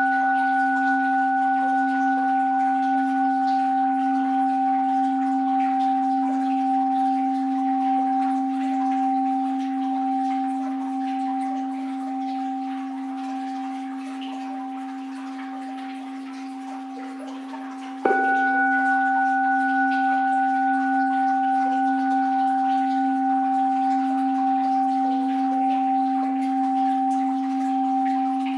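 An orin, a Japanese Buddhist bowl bell, rings on with a steady low hum and higher overtones, slowly fading. It is struck again about eighteen seconds in and rings out afresh.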